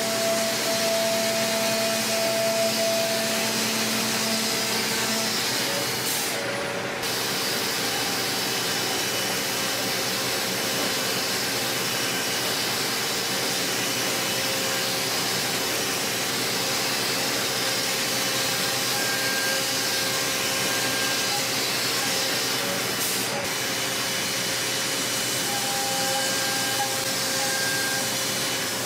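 5-axis CNC machining centre milling aluminium at high speed: a steady hissing rush with several steady whining tones that shift as the cut goes on. The high hiss drops out briefly about six seconds in and again near 23 seconds.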